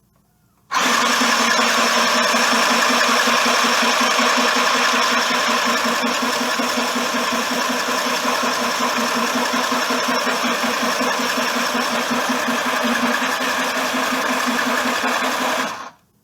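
Small electric sewing machine running steadily, stitching a seam, with a fast even rhythm. It starts abruptly about a second in and stops just before the end.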